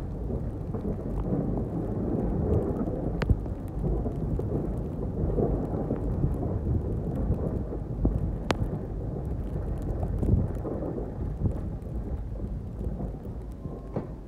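Pickup truck with a front snow plow running while the blade pushes snow, a continuous low, noisy rumble. Two sharp clicks stand out, about three seconds in and again about eight seconds in.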